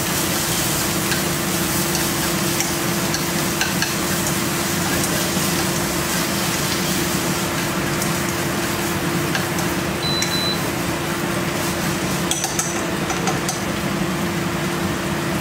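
Steady hum of a kitchen range-hood fan mixed with food sizzling in a pan, and a few light clinks of a spoon against cookware.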